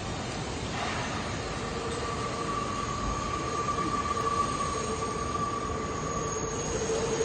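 Steady machinery noise with a held high-pitched whine over a rumbling hiss.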